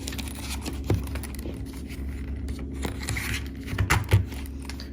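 Leatherman bit kits being pushed into a leather pouch: rubbing and scraping of leather with a few small knocks and rattles, the loudest near the end, over a steady low hum.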